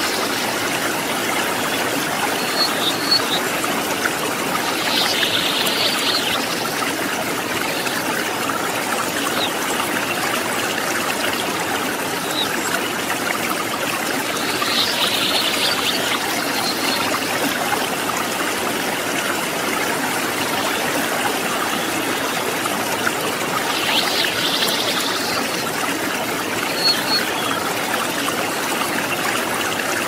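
River water flowing over rocks: a steady, even rush of running water. A few brief high-pitched sounds rise above it every several seconds.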